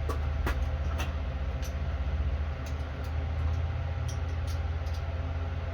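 A steady low rumble runs underneath scattered light metallic clicks and taps, the sound of a socket wrench on an extension working the deck-brake screws of a Craftsman riding mower.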